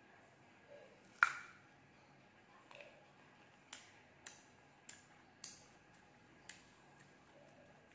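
A crisp bite into a firm, unripe green ambarella (cóc) about a second in, followed by crunchy chewing heard as a handful of sharp, irregular crunches.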